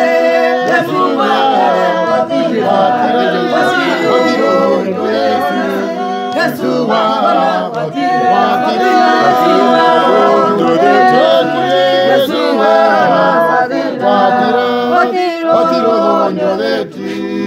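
Church choir singing unaccompanied, several voices together in harmony.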